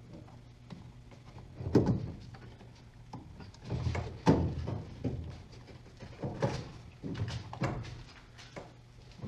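Metal parts and tools being handled on a workbench: a series of sharp knocks and clanks, the loudest about two and four seconds in, over a steady low hum.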